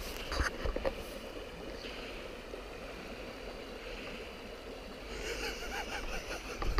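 Shallow stream running over stones: steady, even water noise.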